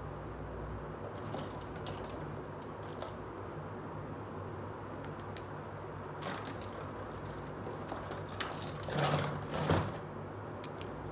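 Small plastic toy fork and spoon being picked up and handled: scattered light plastic clicks and taps, with a louder rattling clatter twice around nine to ten seconds in, over a steady background hiss and low hum.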